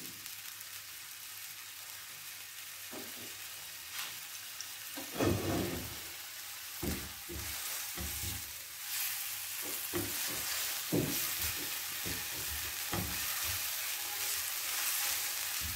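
Ginger-garlic paste sizzling in hot oil on a non-stick tawa. After the first few seconds a silicone spatula scrapes and knocks against the pan again and again as the paste is stirred.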